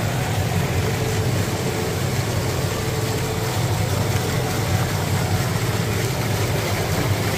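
Fountain water splashing steadily as it spills over a tiered stone basin and small jets fall into a pool, with a crowd murmuring behind it.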